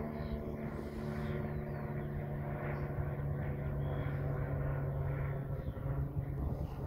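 Propeller aircraft flying overhead: a steady droning hum whose pitch drops slightly in the second half as it passes.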